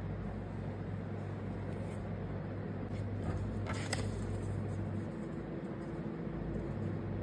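A steady low background hum, with a few brief taps and rustles about three and four seconds in as sheets of paper are handled.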